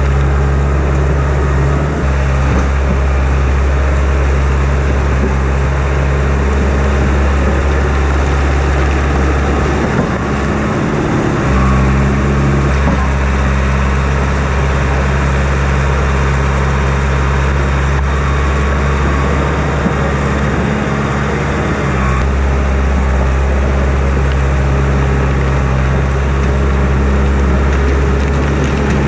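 Caterpillar crawler dozer's diesel engine running steadily under load as the dozer pushes dirt and backs up. Its note shifts a few times as the load changes, once a few seconds in, again a little after a third of the way, and again about three-quarters through.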